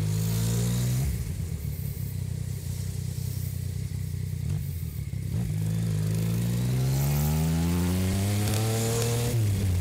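Yamaha Tracer 900 GT's three-cylinder engine pulling away at low town speed. The revs rise briefly at the start, hold steadier for a few seconds, then climb smoothly and at length before dropping suddenly near the end.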